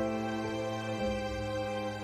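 Slow background music with long held notes that change every half second to a second.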